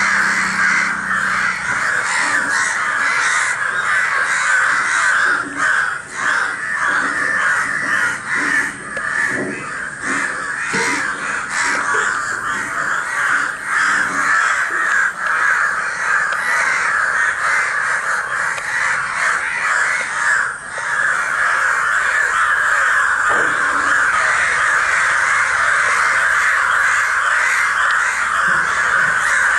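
A large flock of crows cawing without a break, many harsh calls overlapping at once. This is the alarm-calling crows raise when they gather over a fallen, injured crow.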